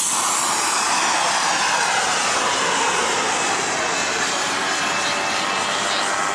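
Propeller engine of a Fokker Dr.I-style triplane droning steadily as it flies past, its pitch falling over the first few seconds.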